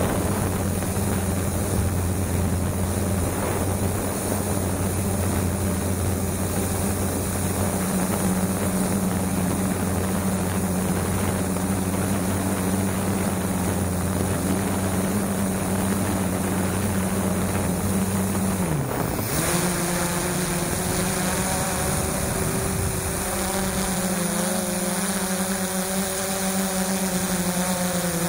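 FreeX quadcopter's electric motors and propellers droning steadily, heard from the camera mounted on the drone. About two-thirds of the way in the pitch dips briefly and settles into a different mix of tones as the motors change speed.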